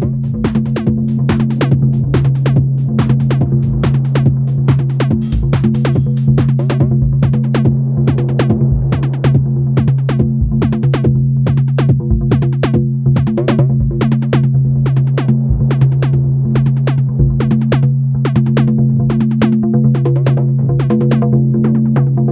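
Glitchy electronic music from a modular synthesizer rig run through delay, reverb and distortion effects. A steady low drone is held under a fast run of sharp, clicky percussive hits, about four a second. The hits lose their bright top about seven seconds in.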